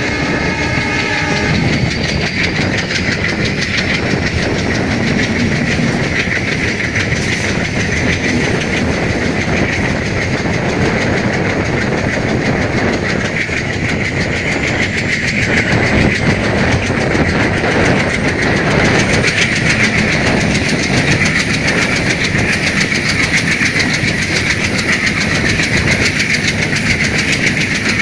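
WDM-3A diesel-electric locomotive's ALCO 16-cylinder engine running at high revs under acceleration. Its turbocharger whistle climbs slowly and steadily in pitch, over wheels clicking across rail joints. A short pitched tone stops about a second and a half in.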